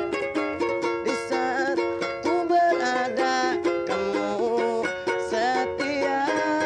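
Ukulele strummed in a steady rhythm, with a voice singing long held notes that bend and waver.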